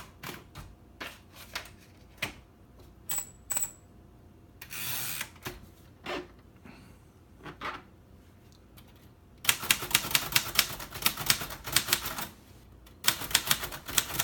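1956 Royal Quiet Deluxe manual typewriter: scattered single key strikes and clicks, with a short rasping sound about five seconds in. After that come two fast runs of typebars striking, from about two-thirds of the way through, with a brief pause between them.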